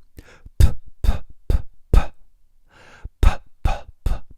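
Plosive consonants ('p'/'b' pops) spoken into a dynamic vocal microphone: about eight short sharp pops, several carrying a low thump of breath hitting the mic, with a short breathy hiss about two and a half seconds in.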